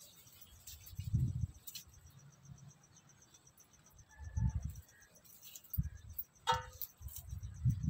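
An insect chirring steadily in a high, rapid pulse, with irregular low rumbles of wind buffeting the microphone and a few short rustles among the plants.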